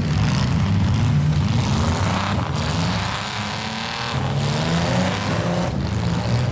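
Demolition derby car engines running and revving, the pitch dipping and then climbing again around the middle.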